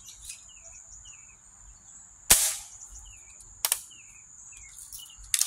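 Vintage Daisy Buffalo Bill lever-action BB gun firing one sharp shot about two seconds in, followed by a lighter click over a second later and a quick pair of clicks near the end. Small birds chirp throughout.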